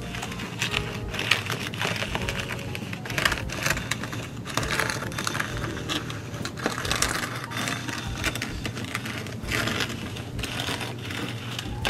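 Fine crushed-rock ballast rattling and scraping as a clear plastic ballast spreader is slid along model railroad track, grit trickling out onto the ties. The sound is a dense, irregular clicking.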